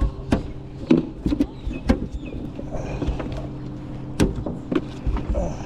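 Scattered knocks and clicks of gear and fish being handled in a small fishing boat, over a steady low hum; the loudest knock comes a little after four seconds in.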